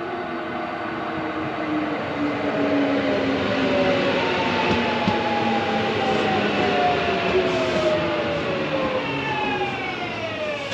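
Kintetsu electric commuter train pulling into a station and braking. Its traction motors whine in several tones that fall steadily in pitch as it slows, over the rumble of wheels on the rails.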